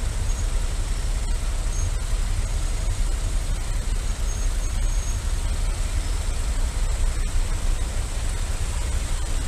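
Motorcycle engine idling in stopped traffic: a steady low rumble that does not rise or fall, with the noise of surrounding idling vehicles.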